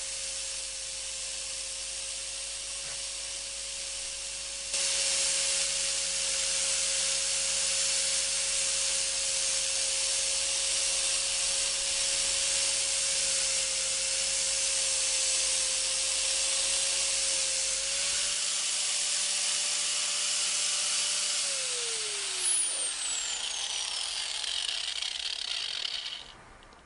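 Einhell angle grinder fitted with a sanding disc, its motor whining at a steady pitch while the disc sands the cut end grain of a wooden shelf. The sanding hiss gets louder about five seconds in. Near the end the grinder is switched off and its whine falls away as it spins down.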